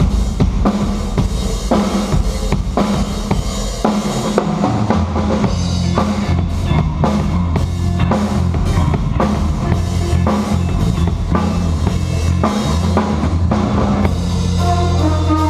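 Music led by a drum kit playing a busy beat of bass drum and snare hits over sustained low bass notes; a pitched melodic part comes in near the end.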